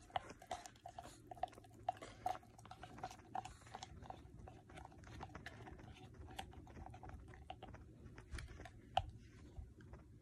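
Plastic spoon stirring a thick hair-grease mixture in a plastic jar: faint, irregular clicks, scrapes and small squeaks, with one sharper click about nine seconds in.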